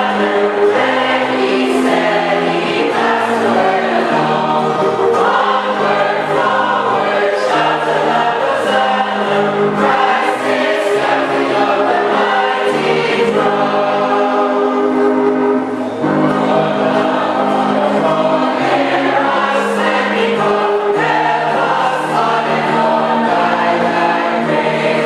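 Church congregation singing the closing hymn together, many voices holding long notes that move from note to note.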